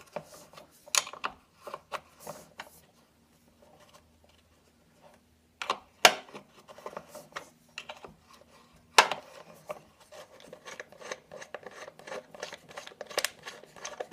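Wrench on the bolt that holds a Vespa PX engine cowling: scattered sharp metallic clicks and knocks, then a run of quick small ticks over the last few seconds.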